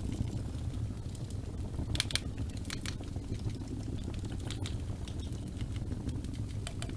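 Wood fire in a fireplace crackling: irregular sharp pops and snaps, a few louder ones about two seconds in and again near three seconds, over a steady low rumble of the flames.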